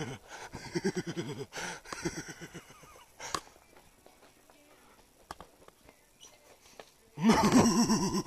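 Breathless voices of people running: short bursts of laughing and panting in the first couple of seconds, a quieter stretch with scattered knocks, then a loud burst of laughter or shouting near the end.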